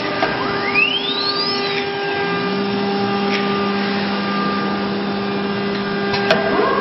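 ATC CNC router running, its spindle motor giving a steady whine made of several constant tones. Near the start a tone sweeps upward in pitch for about a second and a half, a lower tone joins about two seconds in, and there is a sharp click about six seconds in.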